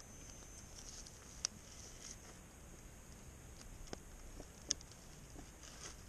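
Wood campfire crackling: a few scattered sharp pops from the burning logs, the loudest about one and a half seconds in and just before five seconds.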